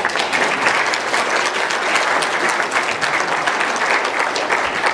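Congregation applauding, a dense, steady clatter of many hands clapping.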